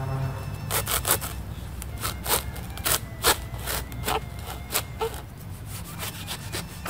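Curved pruning saw cutting through the husk of a green coconut: short, uneven rasping strokes, about one or two a second, that stop about five seconds in.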